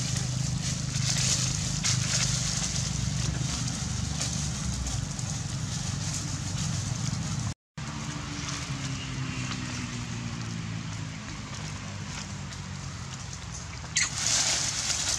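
A steady low motor drone in the background, under an even hiss. The sound drops out for a moment about halfway, and a short loud burst of noise comes near the end.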